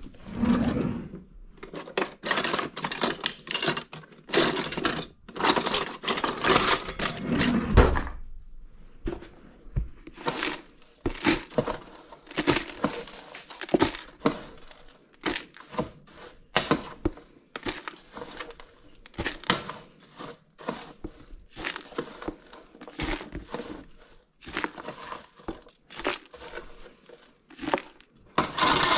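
Kitchen handling sounds: a drawer and utensils rattle, then a metal spoon scrapes and stirs through a dry oat mixture in a metal baking tray, making irregular clicks and scrapes. The sound is dense for the first several seconds and then thins out into scattered scrapes.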